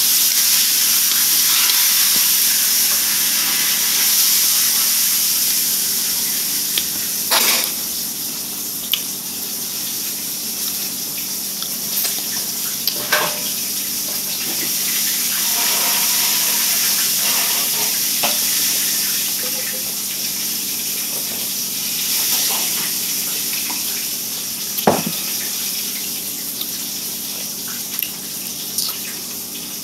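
Steady loud rushing hiss in the background, strongest in the high treble, with a few short clicks over it.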